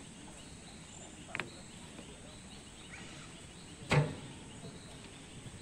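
Forest ambience: a steady hiss with a faint, high, steady insect drone. A sharp knock sounds about four seconds in, with a smaller click a little after one second.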